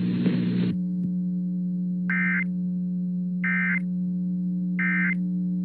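Three short bursts of EAS data tones, about 1.3 seconds apart: the End of Message code that closes an Emergency Alert System warning. They sound over a steady low electronic hum.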